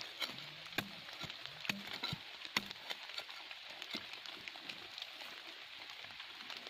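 A pointed metal digging tool knocks and scrapes irregularly into hard soil around a buried earthenware jar, over a steady hiss.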